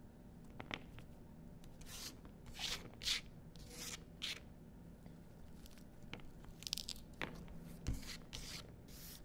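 A pomegranate being pulled apart and its seeds picked out by hand: irregular short tearing and crackling sounds of rind, pith and seed clusters, with a soft thump near the end.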